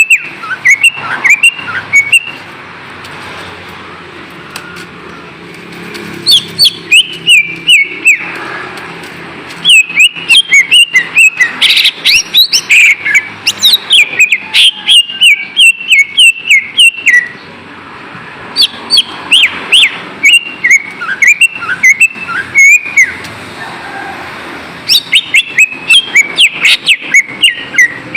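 Cucak ijo (greater green leafbird) singing in rapid bursts of loud, sharp whistled notes that sweep up and down. Several long outpourings of song are separated by brief quieter gaps.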